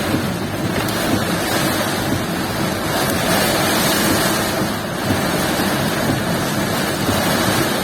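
Storm wind and rain: a steady rushing noise, with wind buffeting the microphone.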